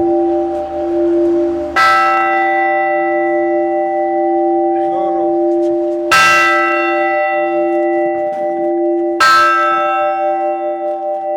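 Newly installed church bell struck three times by its clapper, a few seconds apart. Each stroke rings on in a long, many-toned decay over a steady low hum that carries on between strokes.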